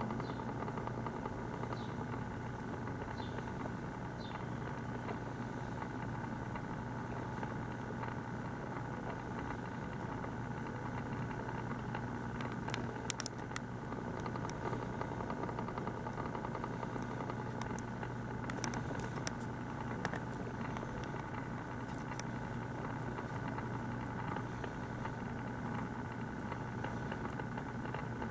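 Steady low mechanical hum, like a small electric motor running, with a few faint clicks around the middle.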